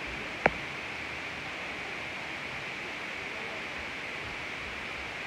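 Steady recording hiss with a single sharp click about half a second in.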